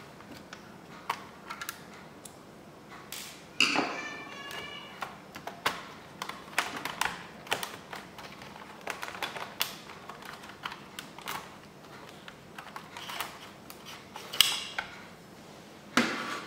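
Irregular clicks and taps of a screwdriver and small screws being worked out of the plastic underside of an HP Pavilion dv6000 laptop, with a few louder, briefly ringing clatters, the loudest about four seconds in and twice near the end.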